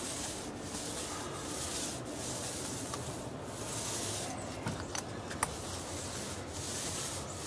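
Stain being worked back and forth onto a wooden deck board with a paint applicator: repeated rubbing strokes, roughly one a second, with a few light clicks about five seconds in.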